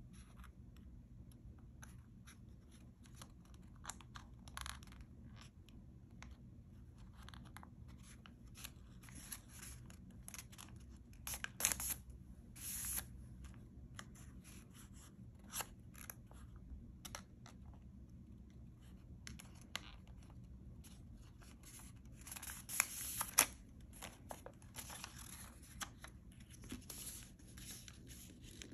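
Thin patterned craft paper rustling and crinkling as fingers fold and tuck paper strips, in many short scratchy brushes, louder around twelve seconds in and again around twenty-three seconds in.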